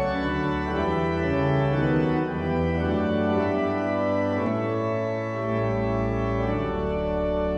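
Organ playing the opening of a hymn in sustained chords that move from one to the next over a low bass line. This is the introduction before the singing begins.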